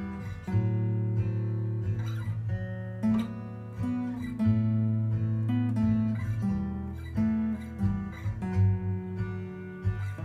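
Steel-string cutaway acoustic guitar played solo, picking a tune: a melody of single notes over low bass notes that ring on.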